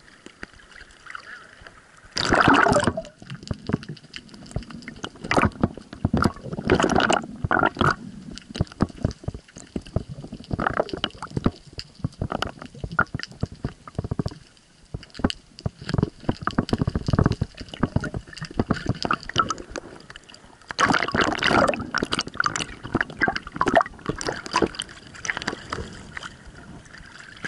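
Seawater sloshing, splashing and gurgling around the camera as it dips in and out of the water, in irregular bursts that are loudest about two seconds in and again about three-quarters of the way through.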